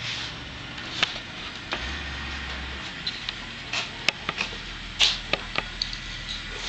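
Handling noises around a saddled horse: scattered light clicks, knocks and rustles of tack and gear being worked, with a quick run of sharp ticks about four to five and a half seconds in.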